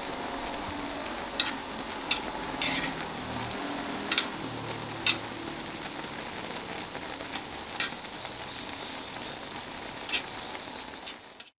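Ramen broth boiling hard in a cast-iron pot-lid griddle: a steady bubbling sizzle with sharp pops now and then.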